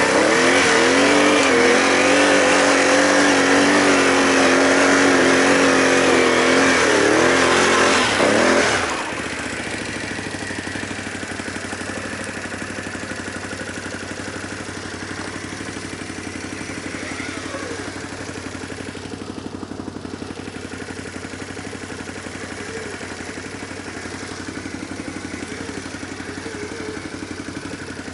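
Can-Am ATV engine revving hard under load on a steep climb, then dropping suddenly about nine seconds in to a lower, steady running note with light rattling.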